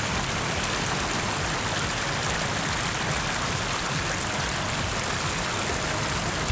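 Steady rush of moving water, an even hiss that holds without change.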